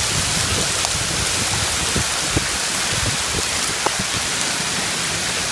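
Torrential rain with small hail falling on a flooded paved street: a steady, dense hiss with scattered sharp ticks of stones striking.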